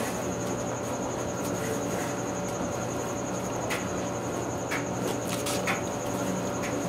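A few light clicks and taps of engine parts being handled while the main bearing shells are cleaned, over a steady hum and an evenly pulsing high-pitched chirp.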